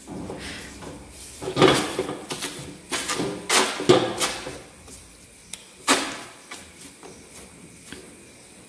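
Ball of soft semolina dough dabbed again and again onto a hot upturned copper pan to lay a thin dioul pastry sheet: a run of irregular slapping taps, thickest in the first half, with a last one about six seconds in.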